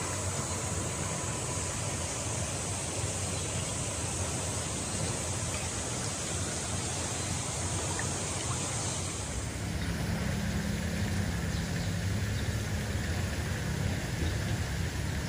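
Steady outdoor ambient noise: an even hiss with a high hissing band that stops about nine seconds in, after which a lower rumble grows.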